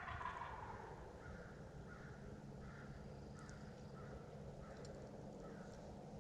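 Distant wild turkey gobbler gobbling once at the start, followed by a string of short, evenly spaced bird calls.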